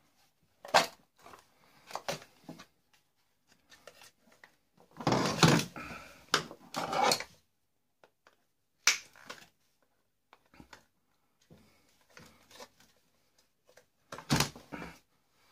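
Hand tools working on a steam iron's plastic housing and cord end: scattered clicks, knocks and plastic creaks as parts are prised and pulled, with a louder two-second stretch of scraping and crackling about five seconds in.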